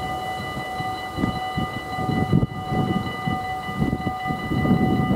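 Level crossing warning bell ringing steadily on one bell-like chord of several high tones. Under it, gusty wind rumble on the microphone starts about a second in.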